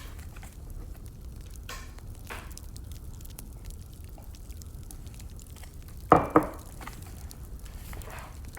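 Wood fire burning, crackling steadily with a low rumble and many small ticks, with two loud sharp pops close together about six seconds in.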